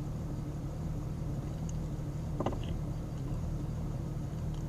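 1999 Jeep XJ engine idling roughly in drive at full operating temperature, heard from inside the cab as a steady low hum. The engine is missing at idle with a little surge and drop, a misfire later traced to a failing ignition coil.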